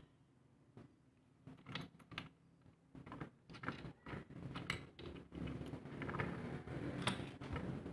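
Light clicks and taps of tools being handled against a metal XLR connector as its solder cups are tinned, with a low rumble building up in the second half.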